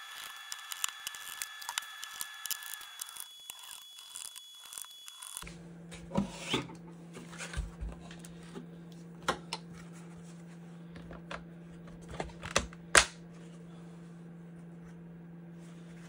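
Plastic trim of a 2024 Subaru Crosstrek centre console being handled and pressed together: rustling, then a series of sharp clicks and snaps in the second half as the gloss black shifter trim's clips seat, the last snap the loudest.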